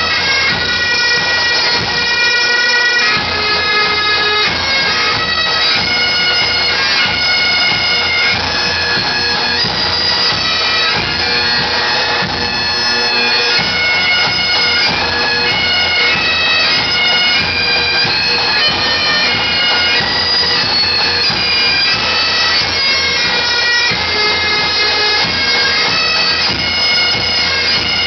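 A group of Great Highland bagpipes playing a tune together, the melody notes moving over a steady, unbroken drone.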